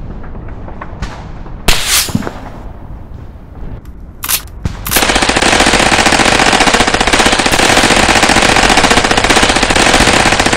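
Gunfire sound effects: a few separate sharp bangs in the first half, then from about halfway in a long, unbroken burst of rapid automatic rifle fire.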